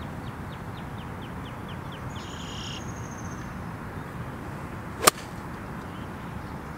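Golf iron striking the ball on a full swing: a single sharp crack about five seconds in, over steady outdoor background noise.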